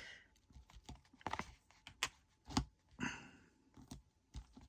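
Scattered light clicks and taps, with a brief rustle about three seconds in, as small plastic bags and containers of diamond-painting drills are handled.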